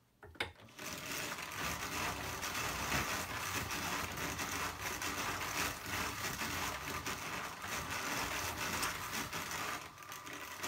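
Hand-cranked drum carder turning steadily, its drums whirring as the toothed carding cloth combs sheep's wool. It starts with a click about half a second in and runs down near the end.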